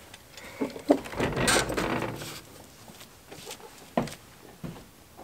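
Handling and rustling as tools are picked up off a wooden bench, then footsteps, with a knock about four seconds in as a boot lands on the shed's wooden doorstep.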